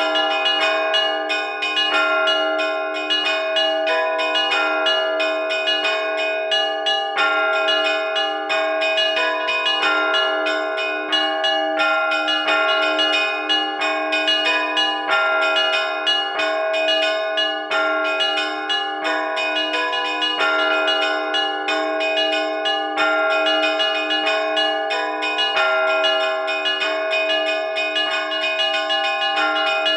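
Russian Orthodox church bells rung by hand in a simple peal: two middle-sized (podzvonnye) bells repeat a simple melody over a quick, steady run of strokes, the tones ringing on and overlapping.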